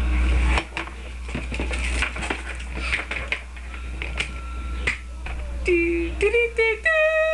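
Irregular sharp clicks and snaps, followed near the end by a few short held notes that step up in pitch.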